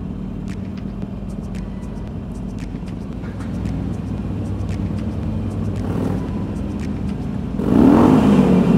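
Harley-Davidson V-twin motorcycle engines running at low speed inside a tunnel. Near the end, about three-quarters of the way in, one engine is revved louder, its pitch rising and then falling.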